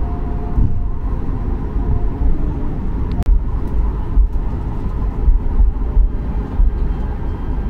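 Steady low rumble inside the cabin of a Boeing 737 MAX 8 as it taxis: the CFM LEAP-1B engines at taxi power and the wheels rolling over the taxiway. A brief click about three seconds in.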